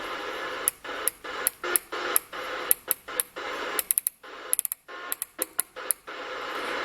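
President Grant II CB radio's speaker hissing with band noise and atmospherics, broken by many sharp clicks and short drop-outs, a few a second, as the channels are stepped through.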